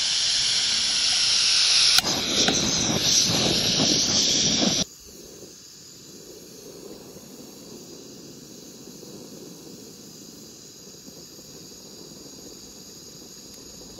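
Gas hissing loudly from a camping stove burner as the valve on its canister is opened. About two seconds in there is a click, and the sound turns into a fuller, rougher rush as the burner lights. It cuts off about five seconds in, leaving only a faint, steady hiss.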